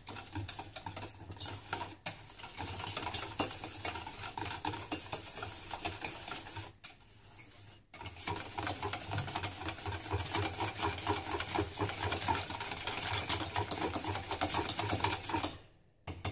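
Thick custard cream being stirred fast in a stainless steel saucepan, the utensil clicking rapidly against the pan's sides. The stirring pauses briefly about seven seconds in and stops just before the end.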